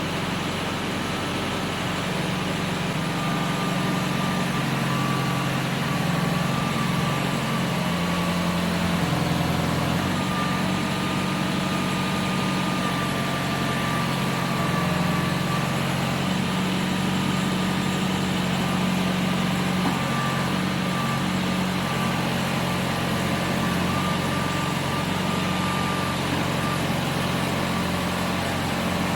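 New Holland tractor engine running steadily under load, with a thin steady whine above the engine note.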